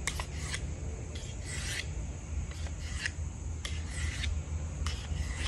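Knife blade drawn in short strokes across a hand-held sharpener: a series of separate rasping scrapes at uneven intervals.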